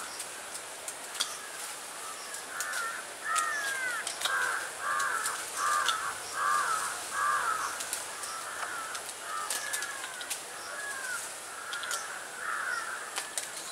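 A bird giving a long run of harsh caws, about two a second. It starts a couple of seconds in and is loudest in the middle, with a faint steady high hiss behind it.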